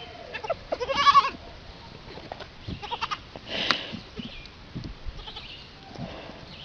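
An animal's short pitched cry about a second in, followed by scattered small clicks and knocks and a brief hiss-like noise.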